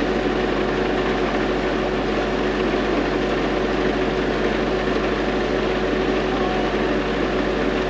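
An engine idling steadily, with a constant drone and a held hum that do not change.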